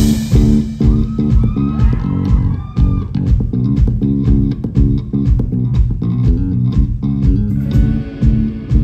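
Live band playing a song, the electric bass prominent under guitar, with a steady beat.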